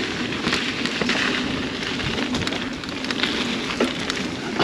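Mountain bike riding fast down a dirt singletrack: a steady crunch and hiss of the tyres rolling over gravelly dirt, with frequent clicks and rattles from the bike over bumps and rocks.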